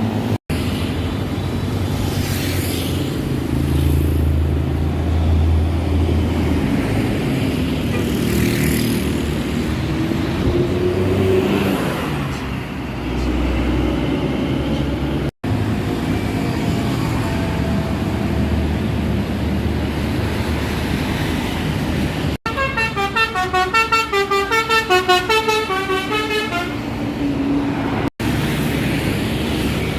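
Buses running and passing with steady engine and traffic noise, then, about three quarters of the way through, a 'telolet basuri' bus horn plays a rapid multi-tone warbling tune for about four seconds.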